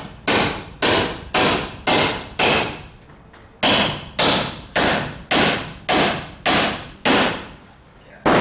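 Claw hammer toenailing a nail into an overhead wooden rafter brace: about a dozen sharp blows, roughly two a second, each ringing briefly, with a short pause about three seconds in.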